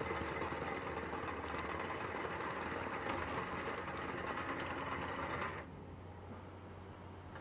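Hydraulic screening bucket working on a 13-tonne excavator: a dense, fast mechanical rattle over the steady hum of the excavator's engine. The rattle cuts off sharply about five and a half seconds in, leaving the engine running more quietly.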